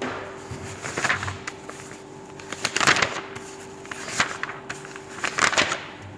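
Marker pen scratching across a whiteboard in short clusters of writing strokes, over a steady faint hum.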